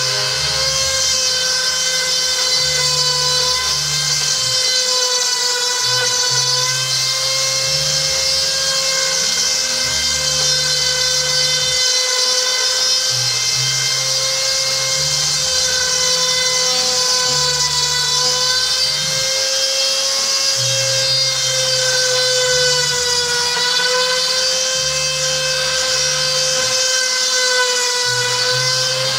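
High-speed rotary tool, mounted in a stand as a small milling spindle, running continuously with a steady high-pitched whine whose pitch dips slightly now and then.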